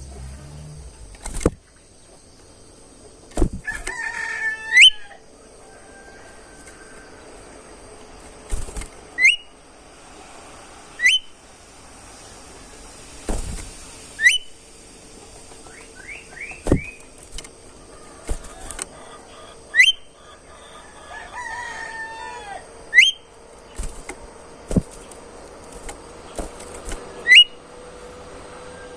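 Kancilan emas (golden whistler, the 'bimoli' bird) singing loud whistled phrases, each ending in a sharp upswept whip-like note, repeated every few seconds. Around 4 s and 22 s there are lower, drawn-out falling whistles. Sharp clicks fall between the phrases.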